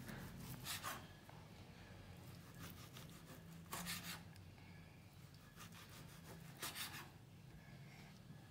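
Kitchen knife slicing through boiled beef tongue on a cutting board: three faint scraping strokes about three seconds apart.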